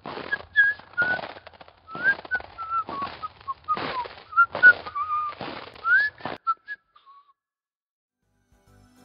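A person whistling a short wandering tune, with a crunching hiss under it roughly once a second. The whistling stops about seven seconds in.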